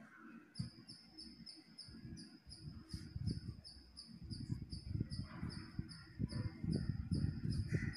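Cotton fabric being folded and creased by hand against a cloth-covered table: soft, irregular rustling and brushing that gets busier in the second half. Over it a cricket chirps steadily, about three high chirps a second, starting about half a second in.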